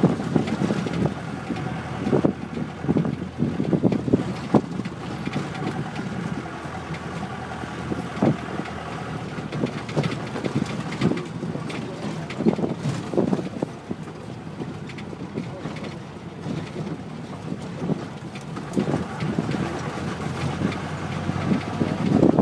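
Wind buffeting a phone's microphone in irregular gusts, with a faint steady hum underneath.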